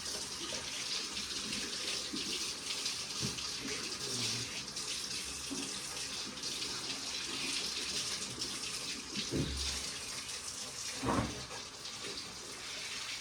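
Steady rushing hiss of running water, with two dull thumps near the end.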